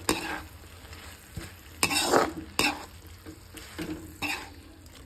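A slotted spatula stirring fried okra, onion and thick masala together in a wok, scraping the pan in irregular strokes, the loudest about two seconds in, over a light sizzle of frying.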